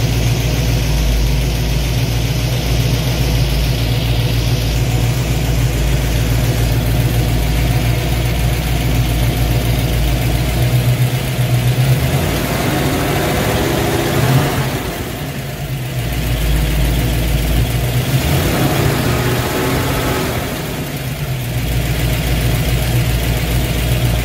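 1966 Ford Mustang engine running at idle, revved up and let fall back twice in the second half.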